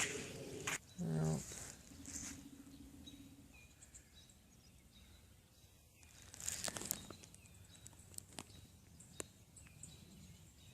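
Quiet outdoor ambience by a pond, with a few faint scattered clicks and a brief faint hum.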